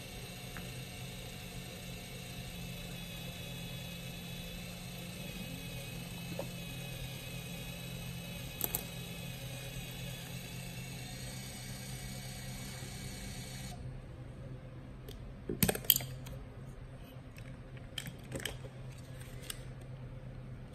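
Hasselblad XPAN II's built-in motor whirring steadily as it rewinds the film into the cassette, the pitch creeping up slightly before it stops abruptly about 14 seconds in. Then come sharp clicks and knocks as the camera back is opened and the film cassette is handled, with a few lighter clicks near the end.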